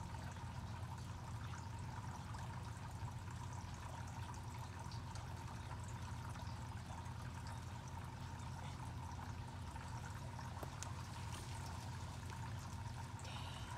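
Steady background noise: an even, water-like rush over a low hum, with a faint steady high tone.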